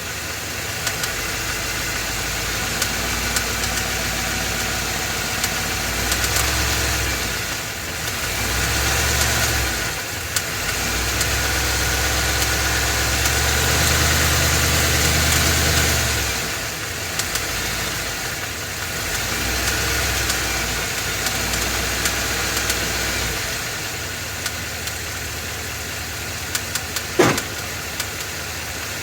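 Ford 7.3 L Godzilla gas V8 running with the serpentine belt off, its speed or load rising and falling several times, with a knocking noise that is still present with no belt-driven accessories turning. Near the end, one short sharp sound falling quickly in pitch.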